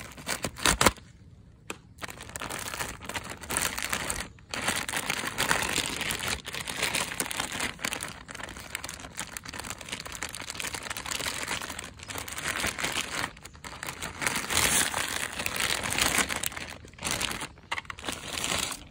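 Clear plastic packaging bag crinkling and rustling as it is handled and pulled open around a plastic toy shotgun, in irregular spells with brief pauses. A sharp tap just under a second in is the loudest moment.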